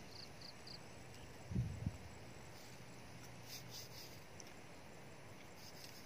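Faint outdoor garden ambience: three short high chirps near the start and two dull low thumps about a second and a half in.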